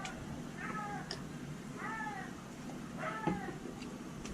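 A cat meowing repeatedly, three short calls about a second apart, each rising then falling in pitch. A short knock comes about three seconds in, over a low steady hum.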